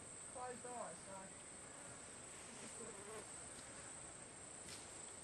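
Steady, high-pitched insect chorus, with a brief faint voice about half a second in.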